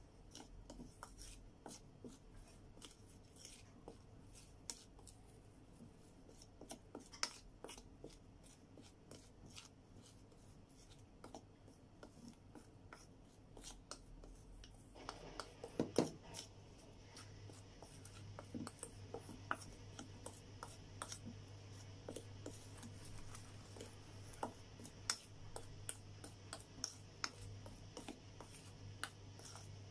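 Wooden spoon stirring dry flour and cocoa powder in a stainless steel bowl: scraping, with many light clicks and taps of the spoon against the metal, and one louder knock about halfway through.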